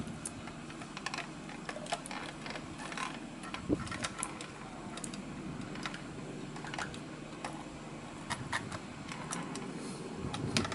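Irregular small clicks and rattles from a 1/34-scale diecast front-loader garbage truck model as its arms are moved by hand, tipping a toy dumpster into the hopper and lowering again.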